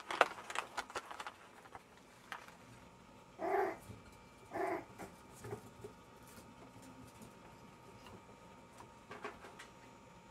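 Two short dog yelps, about a second apart, from a Jack Russell terrier, after a second or so of rustling and clicks close to the microphone.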